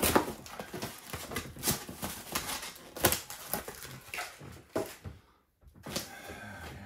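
Cardboard box being torn open by hand: flaps and tape ripping, crackling and scraping in irregular bursts. The loudest cracks come at the start and about three seconds in, with a brief lull just before a softer rustle near the end.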